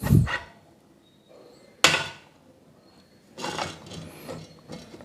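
Metal knocks and clunks as a steel C stand's centre column is fitted into its wheeled base: a heavy thump at the start, a sharp knock a little before two seconds in, then a stretch of lighter clatter.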